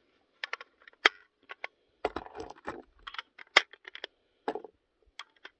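Brass .223 cartridges clicking and clinking as they are pressed one at a time into a polymer rifle magazine: a series of sharp clicks, the strongest about a second apart.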